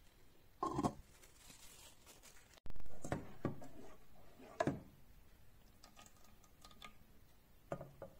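A metal spoon stirring thick tomato gravy in a pan, scraping and knocking against the pan several times. A pot lid clinks once about a second in.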